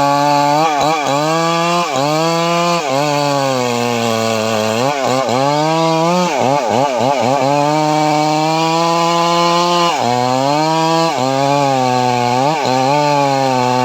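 Stihl chainsaw running at full throttle while cutting cempedak wood, its engine pitch dipping and recovering again and again as the chain loads up in the cut, with a quick run of dips about halfway through.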